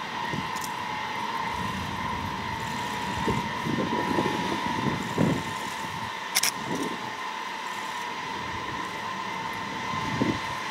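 Ilyushin Il-76's four turbofan engines running with a steady high whine as the jet rolls along the runway, over a low uneven rumble. One sharp click comes about six seconds in.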